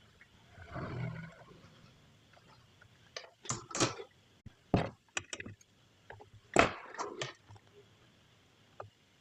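A series of sharp clicks and knocks in small clusters, the loudest about two-thirds of the way through, after a brief low, pitched sound about a second in.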